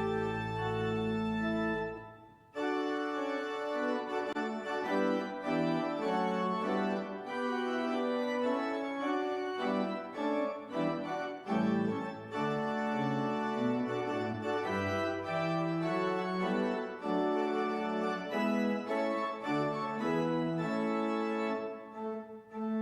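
Church organ playing: a held chord ends about two seconds in, then a passage of sustained, changing notes over a moving bass line.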